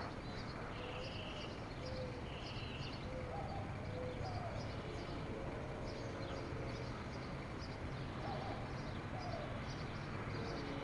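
Birds chirping repeatedly over a steady low outdoor background rumble.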